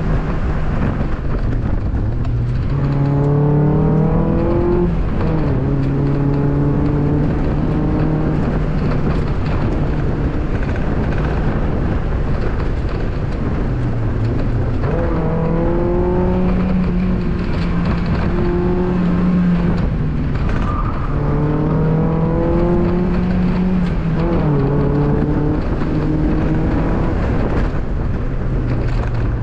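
2002 Mazda Miata's 1.8-litre four-cylinder engine under hard driving, its pitch climbing and dropping again and again as the car accelerates and shifts, over steady road and wind noise.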